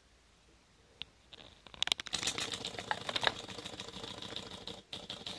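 Lutz Hielscher mini beam steam engine model running, its tiny double-acting cylinder and beam linkage clattering in a fast, even ticking. The ticking starts about two seconds in after near quiet, with a short break near the end.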